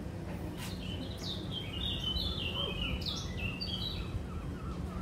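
A songbird singing a run of quick, falling notes for about three seconds, starting about a second in, over a steady low background rumble.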